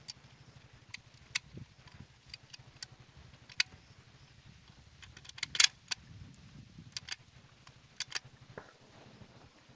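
Scattered sharp clicks and metallic clinks, the loudest a quick cluster about halfway through, over a low steady hum.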